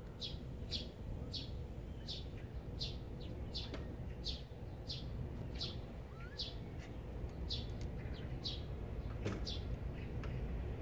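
A small bird calling outdoors: one short, high chirp repeated about every two-thirds of a second, growing sparser near the end, over a faint low rumble.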